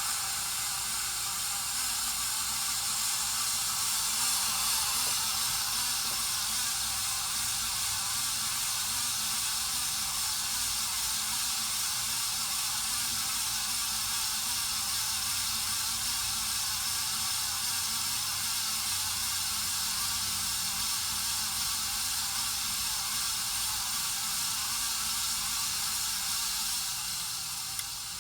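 Casablanca Spirit of Saturn ceiling fan running with worn-out bearings, giving a steady, rough hiss: the sign of bearings that have gone bad and need replacing.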